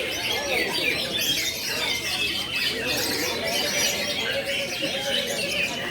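Many caged cucak ijo (green leafbirds) singing at once in a songbird contest: a dense, continuous tangle of overlapping quick chirps and whistled phrases.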